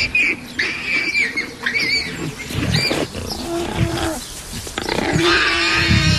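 Lions growling in several low, rough bursts, with higher wavering calls above them.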